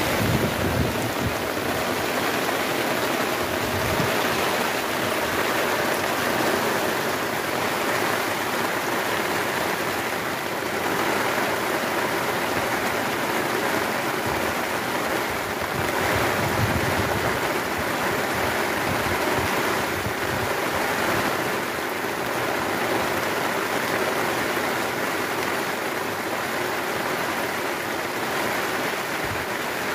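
Heavy rain falling steadily on the sea and on a tarp canopy overhead, an even hiss that does not let up.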